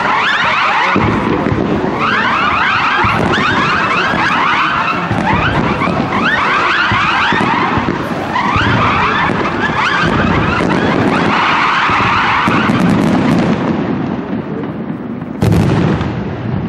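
Fireworks display: repeated volleys of whistling fireworks, many overlapping whistles in clusters every couple of seconds, over a continuous rumble of launches and bursts. About fifteen seconds in, one loud shell burst stands out.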